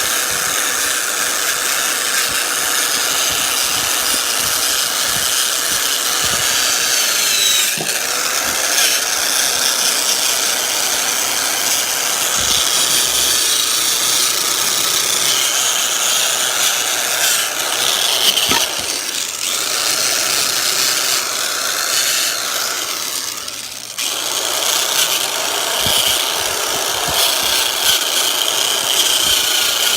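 A power sanding tool working on a mini bike's metal frame, sanding the old paint off. It runs steadily, with a brief dip about three-quarters of the way through.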